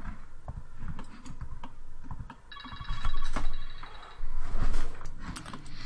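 Computer keyboard and mouse clicks, with a trilling electronic ring, a set of high tones pulsing rapidly, starting about two and a half seconds in and lasting over a second.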